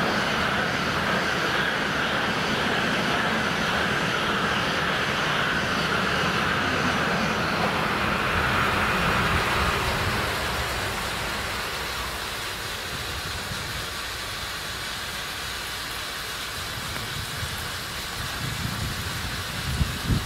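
N700 series Shinkansen trains running through the station at speed: a loud, steady rush of wheel and air noise that fades about ten seconds in, leaving a quieter rumble.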